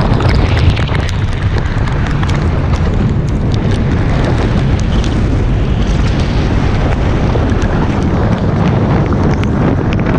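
Loud, steady wind rush blasting the microphone of a flats boat running fast across open water, with scattered sharp ticks through it; the outboard is buried under the wind.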